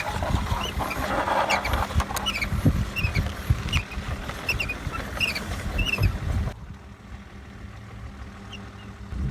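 Rumble and scattered knocks of toy trucks and stones being handled, with short high chirps repeating throughout. The rumble and hiss drop off suddenly about two-thirds of the way through.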